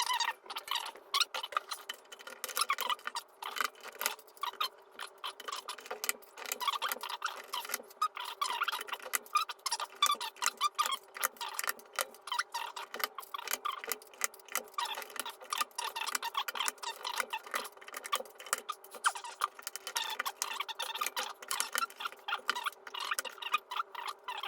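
Keycaps being pried off a mechanical keyboard with a knife: a dense, irregular run of small plastic clicks and snaps.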